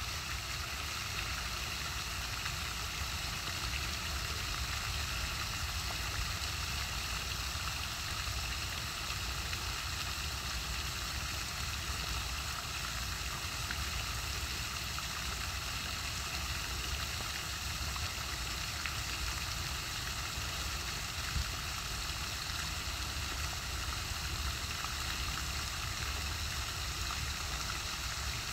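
Pond fountain's spray falling back into the water, making a steady splashing hiss, with a low steady rumble underneath.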